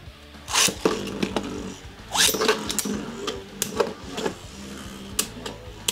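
Beyblade spinning tops, a 3D-printed Twisted Chronos and its opponent, launched with a short rush of noise, then whirring with a steady hum as they spin and knock together in several sharp clicks.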